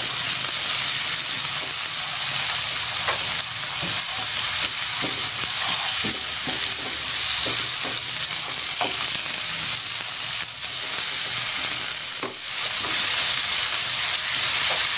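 Chopped shallots, garlic and tomato wedges sizzling steadily in hot oil in a nonstick pan, stirred with a spatula that gives many small scrapes and taps against the pan.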